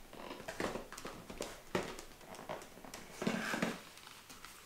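Handling of a small cardboard advent calendar box and the packet inside: scattered light taps, clicks and rustles as it is taken out and opened.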